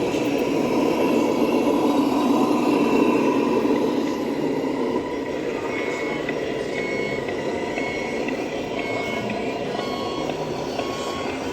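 Reversing alarm beeping in short even pulses, a bit more than one a second, starting about halfway in, over steady background noise that is louder for the first few seconds.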